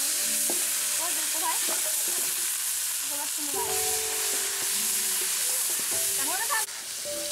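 Onion, ginger, garlic, chili and cumin paste sizzling loudly in hot oil in a large metal kadai, stirred with a long metal spatula. The sizzle is a steady hiss that eases a little near the end.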